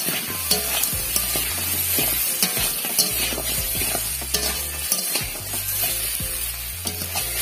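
Raw crabs frying in hot spiced oil in a kadai, sizzling steadily while a spatula stirs and turns them, with frequent sharp clicks and scrapes of the spatula against the pan. This is the crabs being sautéed in the cooked-down masala to drive off their raw smell.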